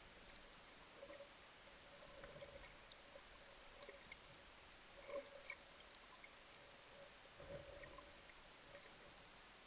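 Near silence: faint underwater ambience with scattered small clicks and crackles and a faint on-and-off hum.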